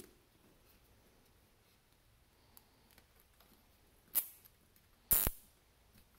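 A plastic zip tie being pulled tight through its head: two short ratcheting zips about a second apart, the second one louder.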